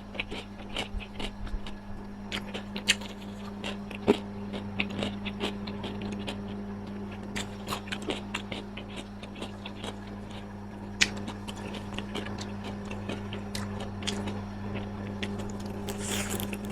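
A person chewing and biting food close to the microphone, with many irregular small sharp clicks and smacks. A steady low hum runs underneath.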